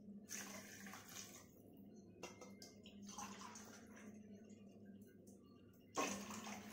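Water poured from a tumbler into a pressure cooker of masala. There are faint liquid sounds at first, then about six seconds in the water comes in at once with a louder pouring splash.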